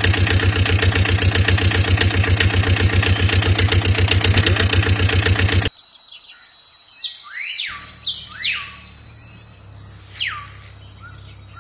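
A loud, rapid, evenly pulsing mechanical sound cuts off suddenly about six seconds in. After it come birds chirping: five or six short rising and falling calls over a faint steady hum.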